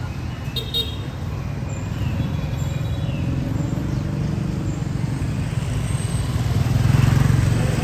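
Street traffic: a steady low rumble of engines, swelling as a vehicle passes close about seven seconds in.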